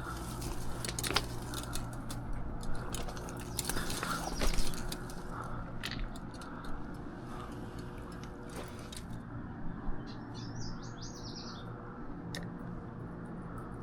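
A small bird chirping: a quick run of short high notes about ten seconds in, over scattered rustling and clicking and a faint steady low background.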